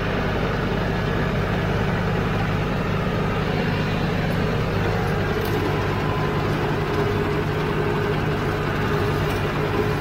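Farm tractor engine running steadily under load while it drives a rear-mounted Rhino rotary cutter (bush hog) mowing tall grass along a dirt road.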